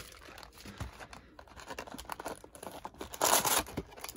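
A Topps baseball-card jumbo box being worked open by hand: small scratches and clicks of the packaging, then one loud tear about three seconds in.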